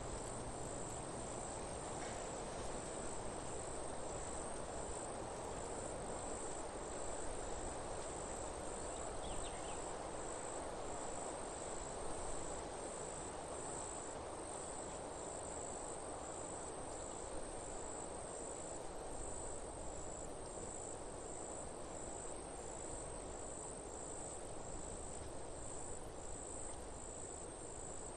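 High-pitched insect chirping, evenly repeated a little over once a second, over a steady background hiss of outdoor ambience.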